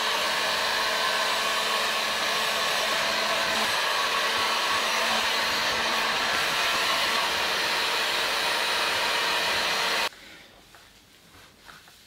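Handheld hot-air heat gun running steadily on its low setting, a constant blowing hiss. It switches off abruptly about ten seconds in, leaving only faint handling noises.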